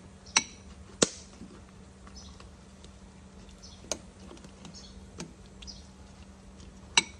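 A handful of sharp, isolated clicks and knocks of kitchen utensils, about five in all, the loudest about a second in and near the end, over a faint steady hum.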